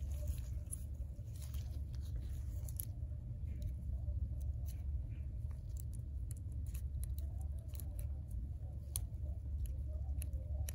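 Faint, scattered clicks and small scrapes from gloved hands handling an iPhone X display assembly and a thin metal pry tool, over a steady low hum.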